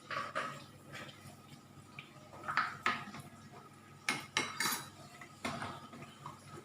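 Kitchen utensils and dishes clinking and clattering in irregular knocks, several in quick pairs.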